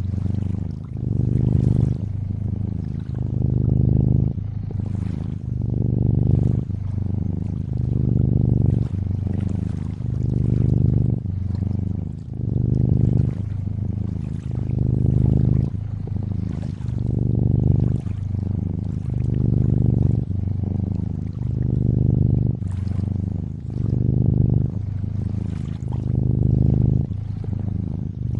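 Domestic cat purring close up, a low rumble that swells and fades about every two seconds with each breath in and out. Fainter lapping, trickling water runs underneath.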